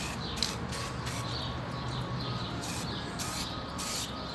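Aerosol spray-paint can hissing in many short, irregular bursts, over a low steady hum.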